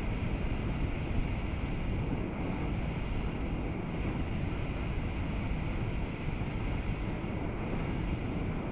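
Hot-air balloon's propane burner firing in one long, loud, steady blast that cuts off suddenly near the end.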